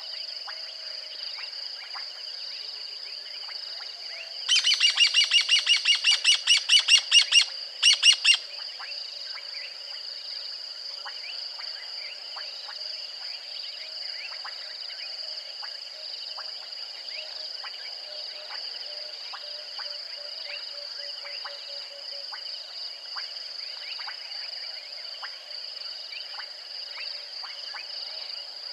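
A bird calls loudly about four seconds in: a quick run of repeated notes, about four a second, then a short pause and two more. A steady high insect chorus hums underneath.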